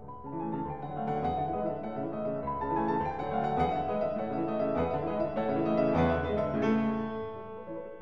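Background piano music, many notes layered, growing louder through the middle and softening near the end.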